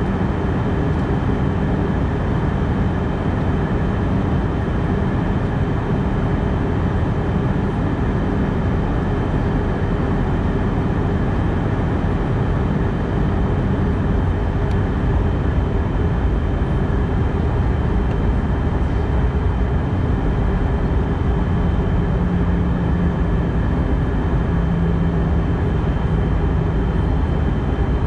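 Cabin noise of an Airbus A319 in flight, heard inside the cabin: a steady rush of airflow and engine drone with a few faint steady whining tones. A low hum grows stronger for several seconds near the end.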